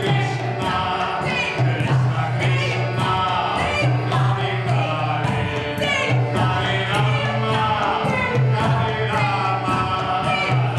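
Music with a group of voices singing over regular drum strokes and a low note that repeats in a steady pattern about every second and a half.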